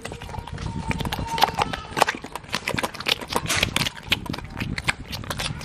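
Traditional Tamil grinding stone (aattukal): the granite pestle is turned round the stone basin through thick wet spice paste, giving a dense, irregular run of stone-on-stone knocks and clicks.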